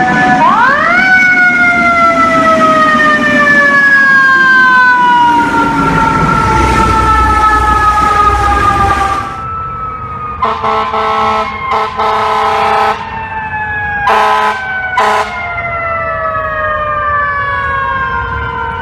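Fire truck mechanical Q siren winding up sharply just after the start, then slowly coasting down in pitch. About ten seconds in, the truck's air horns blast in a long, broken burst, then twice more briefly, while a siren keeps gliding down.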